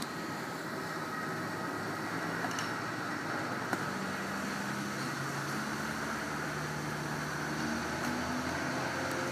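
Airbus A320 jet engines running with a steady whine as the airliner taxis and turns. From about four seconds in, a lower engine hum joins as a small airport baggage tug drives past.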